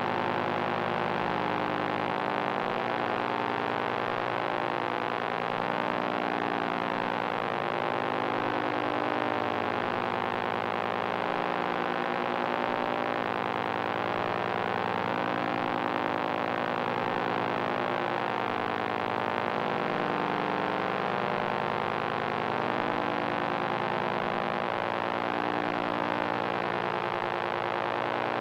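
Electronic noise drone from analog machines: a dense cluster of steady humming tones that slowly beat against each other, with the lower tones shifting a little every few seconds.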